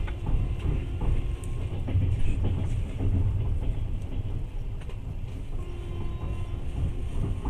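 Passenger train running, heard from inside the carriage: a steady low rumble with scattered clicks and knocks from the wheels on the track.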